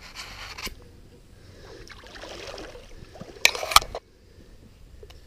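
Legs wading through a shallow stream, the water sloshing and swirling. About three and a half seconds in comes a loud, crackling burst of rustling as bank grass brushes over the camera, and it cuts off suddenly.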